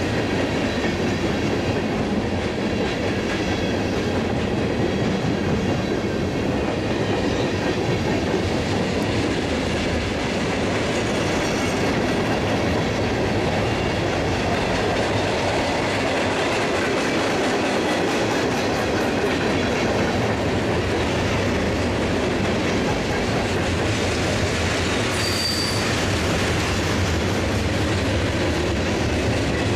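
Freight cars rolling past at close range: a steady rumble of steel wheels on rail with clickety-clack over the rail joints. A short high-pitched wheel squeal comes near the end.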